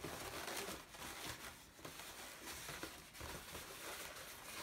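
Faint rubbing and handling noise of latex 260 modelling balloons being twisted and tucked together by hand.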